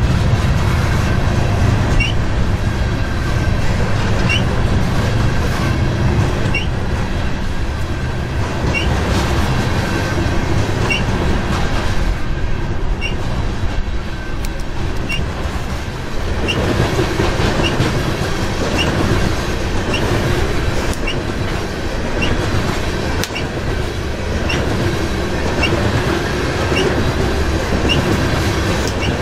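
Loaded coal train of open-top steel hopper cars rolling past close by: a steady rumble with a rhythmic clatter of wheels over the rail joints. A short high wheel squeal comes about every two seconds.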